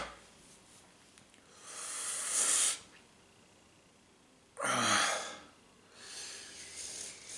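A man breathing hard through his mouth against the burn of capsaicin extract: three loud, hissing breaths about a second long each, the second starting suddenly with a rough, throaty edge.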